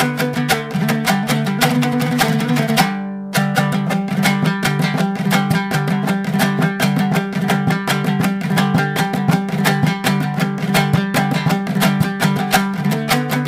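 Instrumental music led by a rapidly picked plucked string instrument, with a brief break about three seconds in before the playing resumes.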